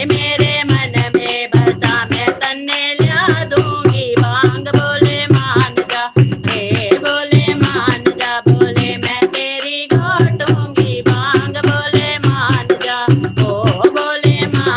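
Instrumental break in a Hindi devotional folk song to Shiva: a wavering melody line over a fast, steady drum beat.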